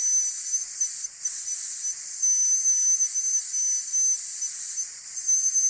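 Dentist's drill running with a high-pitched whine over a steady hiss. The whine grows stronger and fades back several times, louder for a second or so near the middle and again near the end.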